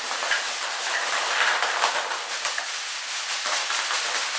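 Thin plastic packaging crinkling and crackling as it is handled and crumpled: a continuous dense rustle of small crackles that stops at the end.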